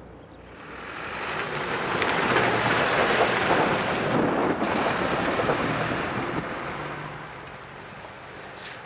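Fire and rescue truck driving past close by: engine and tyre noise swells over about two seconds, holds for a few seconds as it goes by, then fades away.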